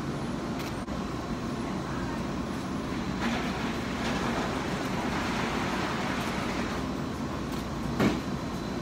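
Steady low rumble of a running vehicle, with a short knock near the end.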